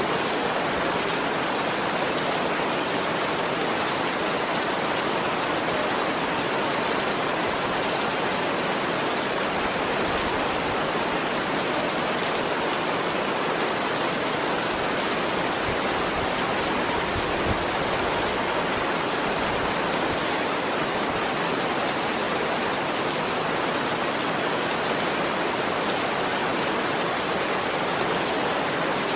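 Heavy rain falling steadily, an even, unbroken hiss with no distinct drops or breaks.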